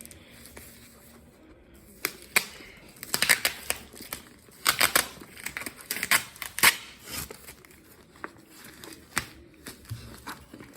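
Packaging being torn and crumpled open by hand: after a quiet start, a run of sharp rips and crinkles comes in several bursts, loudest in the middle, then tails off into scattered rustling.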